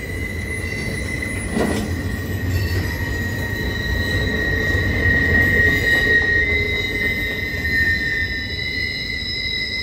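Freight train flatcars rolling past with steel wheels squealing in a steady high tone over a low rumble of wheels on rail. A single clank comes about a second and a half in.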